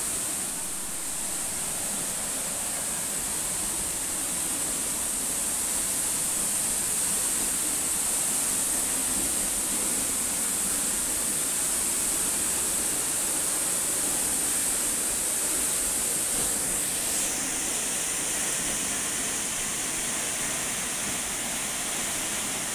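Steady rushing water of a waterfall and its stream, a continuous hiss with a strong high-pitched edge. The sound shifts slightly about seventeen seconds in.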